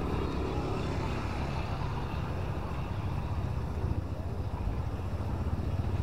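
Beachfront roadside ambience: a steady low rumble of traffic and wind, with faint voices in the background.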